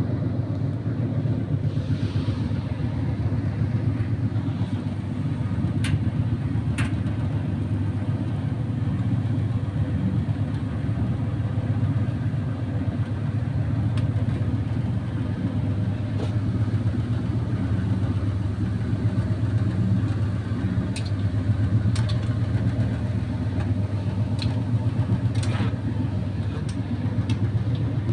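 Indesit YT M11 92K RX tumble dryer running: a steady low hum and rumble of the motor and turning drum, with a few faint clicks.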